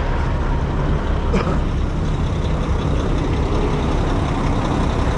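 Heavy diesel dump truck engine running steadily at low speed, a dense low rumble, with one brief higher-pitched sound about a second and a half in.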